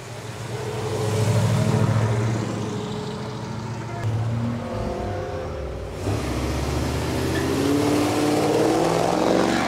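Car engines accelerating, loudest just over a second in and rising in pitch again near the end.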